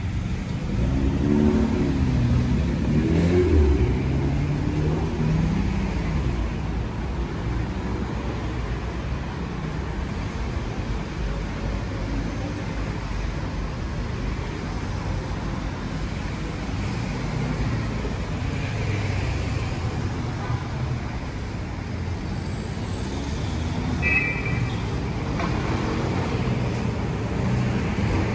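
Street traffic: car engines running and pulling away, with pitch rising and falling, over a steady road noise. A short high beep sounds near the end.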